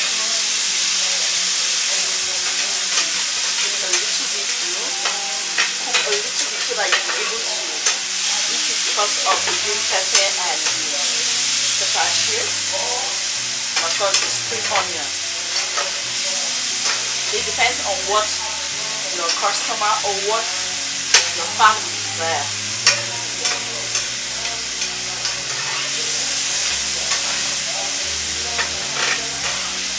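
Vegetables sautéing in butter and oil in a frying pan, sizzling steadily, with a fork clicking and scraping against the pan many times as they are stirred.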